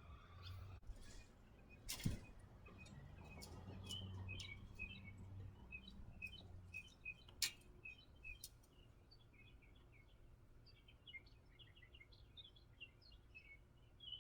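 Faint birds chirping in quick short notes, with a low hum swelling for a few seconds early on and a couple of sharp clicks.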